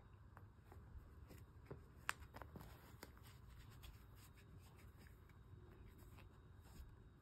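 Faint scratching and rustling of a long-haired cat rolling on carpet and clawing at a catnip toy, with scattered small ticks and one sharp click about two seconds in.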